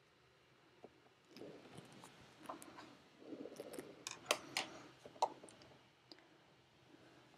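Watercolour brush and paint set being handled: faint rustling with a few sharp clicks and taps, starting about a second and a half in and stopping after about five seconds.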